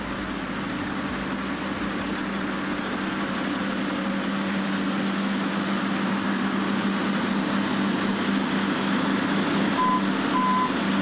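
Heavy diesel construction machinery, an excavator and a dump truck, running steadily while the excavator loads the truck. Near the end a backup alarm starts beeping, about two beeps a second.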